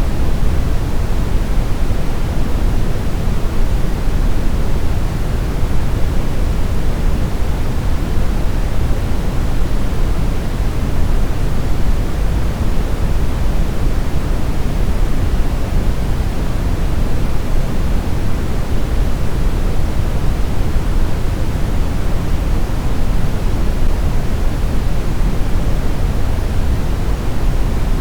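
Steady brown noise: a smooth, even rumble with most of its weight in the low end, no changes or events.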